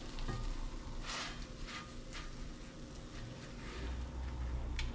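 A silicone spatula scraping and knocking against a cast-iron skillet as frozen waffles are flipped, with a few short scrapes. Under it, a steady faint hiss of waffles frying in melted butter.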